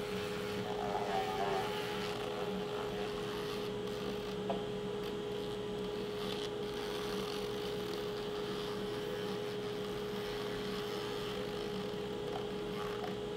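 Small rotary tool running at a steady pitch, its sanding drum working against the edge of a wooden fidget spinner.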